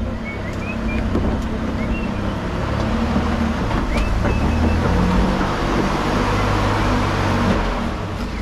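Off-road vehicle's engine running steadily at low speed, with a noisy rush that swells through the middle and a few sharp clicks or knocks, the clearest about four seconds in.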